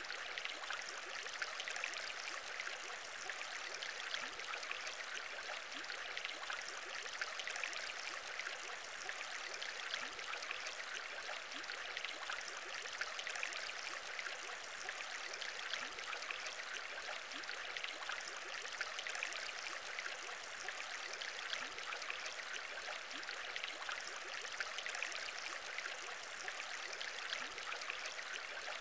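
Aquarium air bubbles rising and bubbling steadily through water: a dense, even stream of many small bubble pops with short rising blips, unchanging throughout.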